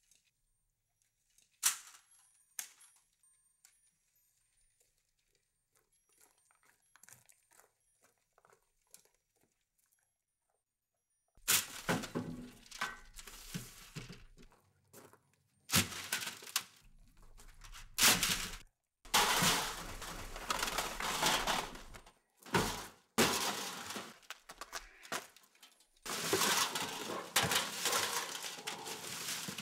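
A few faint clicks, then from about eleven seconds in, loud repeated crashing and clattering as film reels, metal reel cans and tape are thrown into a pickup truck's bed.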